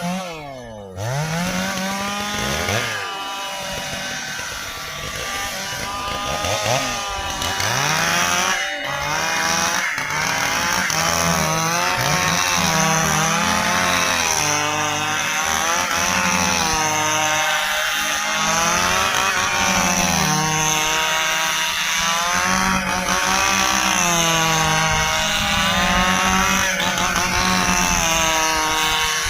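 Stihl chainsaw cutting through dry ipê hardwood, its engine pitch rising and falling over and over as the chain bites into the log and frees up. The engine drops briefly right near the start before picking up again.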